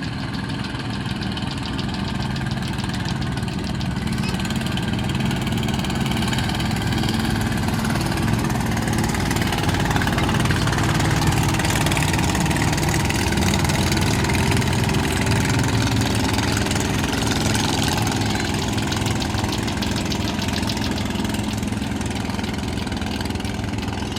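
Small boat's engine running steadily on a river, growing somewhat louder through the middle stretch.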